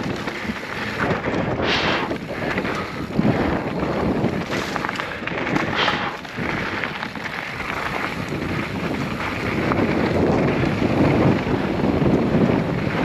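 Wind buffeting the microphone while a mountain bike rolls down a dirt trail, with the noise of the tyres and the bike over rough ground. There are two brief hissing bursts, about two and six seconds in.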